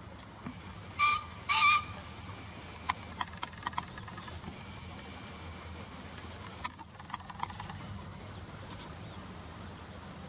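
Green pheasant crowing: a loud, harsh two-note call about a second in, followed later by several short sharp clicks.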